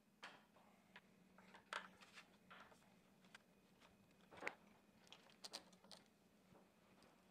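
Faint, scattered metallic clicks and taps of a timing chain and a bar tool being handled at the camshaft sprocket of a Renault R9M diesel engine, the sharpest one about halfway through, over a low steady hum.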